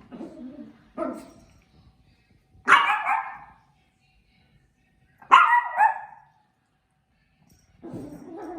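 Maltese puppy barking: two loud, high barks about two and a half seconds apart, with quieter, lower vocal sounds at the start, about a second in and near the end.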